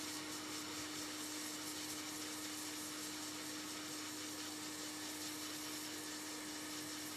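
Hot air rework station blowing a steady hiss of air onto the chip, with a faint steady hum underneath.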